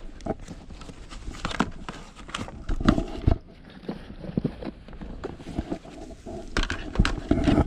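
Irregular knocks, clicks and rustling of things being handled and pulled out of a fabric bag, spare Wi-Fi routers among them.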